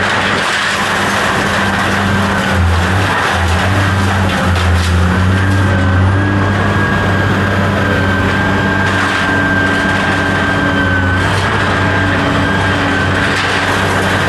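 A motor running steadily, with a constant low hum and a high whine that wavers slightly in pitch.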